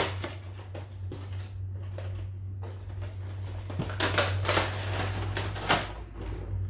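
Cardboard blind box and plastic packaging being opened and handled: rustling and crinkling, loudest in short bursts about four and six seconds in, over a steady low hum.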